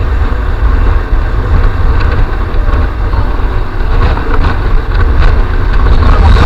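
Wind buffeting the microphone of a moving motor scooter, a loud low rumble that swells and dips unevenly, with the scooter's engine and tyre noise underneath.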